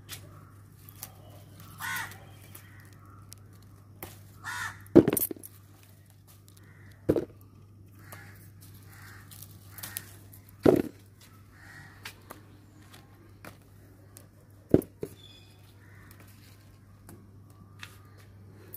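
Harsh crow-like bird caws on and off, with several sharp cracks or snaps, the loudest about five seconds in, over a low steady hum.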